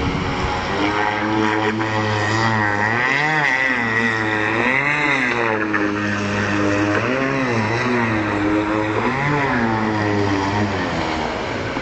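A small speedboat's engine running flat out, its pitch rising and falling every couple of seconds as the boat circles and swerves past.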